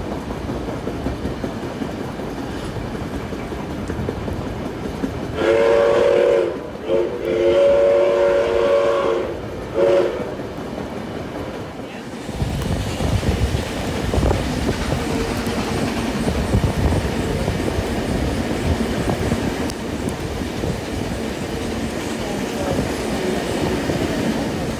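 Steam locomotive 5917's whistle blowing a chord of several notes, heard from the train: a short blast, a long one, then a brief toot, over the steady running noise of the carriage on the rails. Later the train runs on with wheel and rail rumble.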